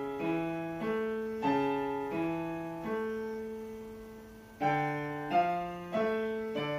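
Background music: a slow solo piano piece, notes and chords struck every half second to a second and left to ring and fade, with a longer held note near the middle.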